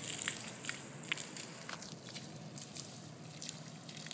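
Faint spatter of water from a garden hose on a wet concrete driveway, with scattered light irregular taps.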